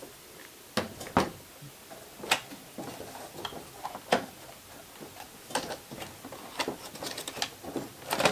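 Irregular clicks and knocks of a Roomba robot vacuum being handled, its plastic parts tapping and clattering, starting about a second in.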